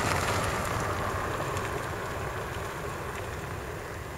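A car passing on the road, its tyre and engine noise a steady rush that slowly fades as it drives away.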